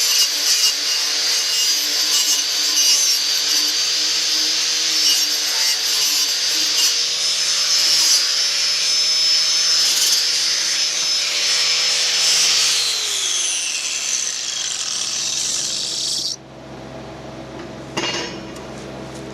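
An electric power tool runs with a steady rasping hiss, then is switched off about twelve seconds in, its pitch falling as it winds down until the noise stops a few seconds later. A single knock follows near the end.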